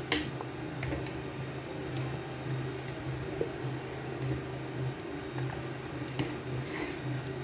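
A spoon stirring thick, slimy ogbono soup in a metal pot, with soft scrapes and squelches, a sharp knock against the pot right at the start and a few light clicks later. A steady low hum runs underneath.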